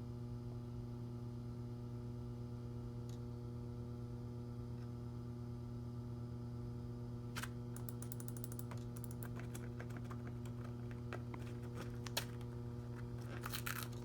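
Keys of a Macintosh PowerBook 165c laptop keyboard clicking in quick bursts, starting about halfway through, over a steady low electrical hum.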